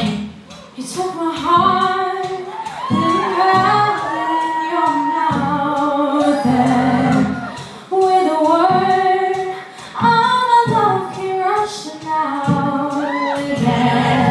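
Live concert music: loud singing in phrases over a steady accompaniment, recorded through a phone in a large venue.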